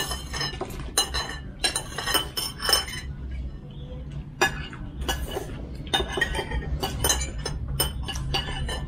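Cutlery and dishes clinking as people eat: many quick, sharp clinks of spoons against bowls and glass, scattered irregularly.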